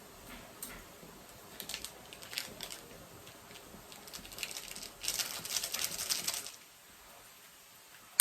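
Light clicks and taps of kitchen handling, then a rustling hiss about five seconds in that lasts a second and a half.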